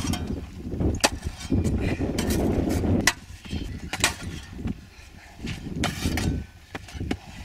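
Spade and hands digging in dry sand: scraping and scooping, with several sharp knocks as the spade strikes, the busiest digging in the first three seconds.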